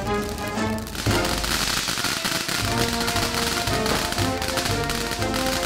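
Background music with the dense crackle of a firework fountain laid over it, the crackling starting about a second in.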